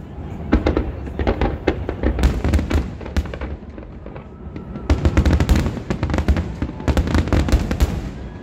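Fireworks finale: rapid volleys of aerial shell bursts, dense cracks and booms in two heavy barrages with a short lull about halfway.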